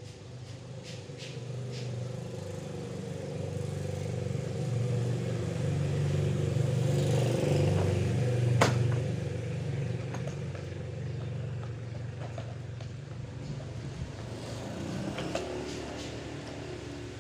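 A motor vehicle's engine running past, growing louder to a peak about halfway through and then fading, with one sharp click just after the peak.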